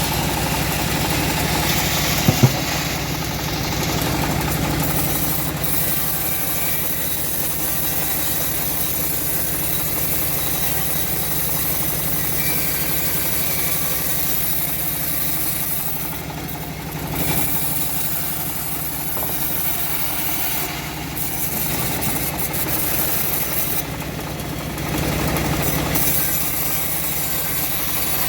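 Engine of a homemade bandsaw mill running steadily, with two sharp knocks about two seconds in.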